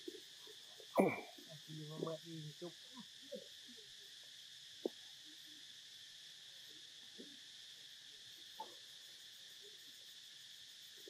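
Insects buzzing steadily in two high, even bands. A loud, short pitched cry comes about a second in, followed by a few brief low vocal sounds, and there is one sharp click near the five-second mark.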